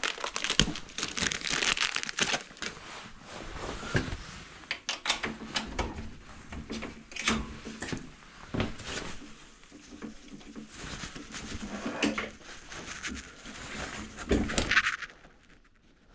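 Plastic packaging crinkling and rustling as it is opened, then scattered clicks and knocks of hands working on a mountain bike's rear wheel and hub. The handling stops about a second before the end.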